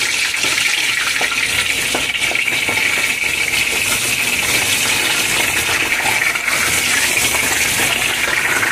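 Bay leaves and cinnamon sticks sizzling in hot oil in a pot, a steady hiss with scattered light ticks from a wooden spatula stirring them.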